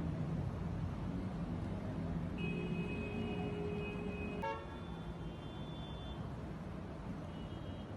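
Steady rush of flowing floodwater, with a vehicle horn held for about two seconds midway. The horn ends in a sharp click, after which fainter high tones sound twice.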